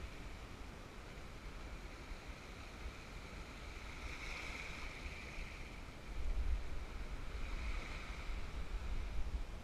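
Small waves washing in over shoreline rocks, the surf swelling twice and falling back. A low wind rumble on the microphone joins from about six seconds in.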